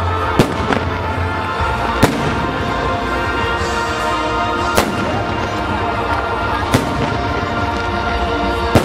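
Fireworks salute: five sharp bangs of shells bursting, roughly two seconds apart, with music playing throughout.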